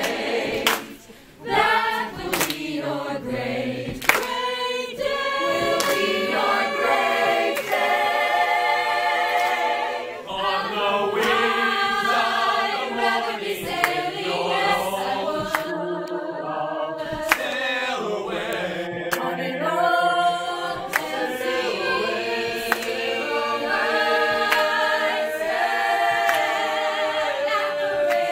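A choir singing unaccompanied in harmony, many voices together, with a long held note near the end.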